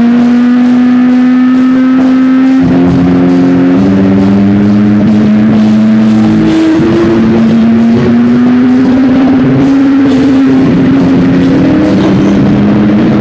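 Loud, distorted rock music: long held guitar-like notes that slowly bend upward and shift to new pitches every few seconds.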